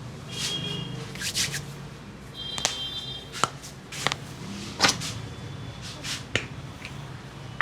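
Indian barber's head massage: a run of about six sharp cracks and snaps from hands working the scalp, hair and skin, with softer swishing strokes between them, over a low steady hum.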